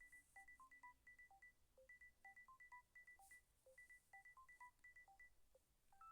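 Phone ringtone: a faint melody of short electronic beeps, the same quick phrase played about three times over.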